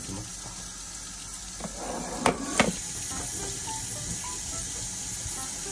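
Tap water running into a stainless-steel sink while fish are washed under it, with two sharp knocks about two seconds in.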